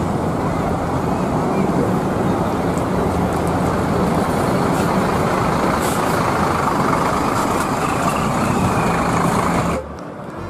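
Large diesel coach bus running as it drives past, a loud steady engine and road noise. The sound drops suddenly to a quieter bus engine near the end.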